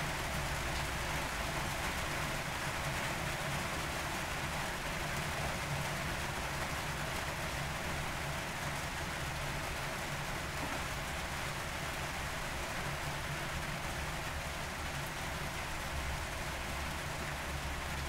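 Steady rain falling, a continuous even hiss with no single drops or other events standing out. A low, steady rumble runs underneath, a little stronger near the end.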